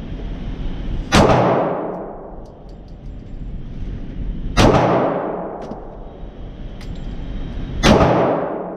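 Three semi-automatic pistol shots, about three seconds apart, each followed by a long echo off the concrete walls of an indoor range.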